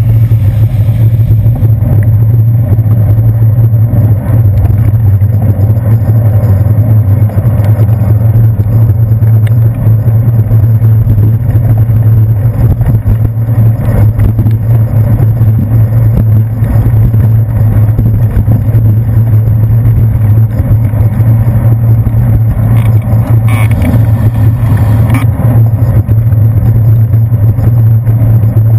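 Loud, steady low rumble of wind and road vibration picked up by a handlebar-mounted GoPro Hero 2 on a bicycle riding over wet pavement, with a couple of brief rattles a little past the twenty-second mark.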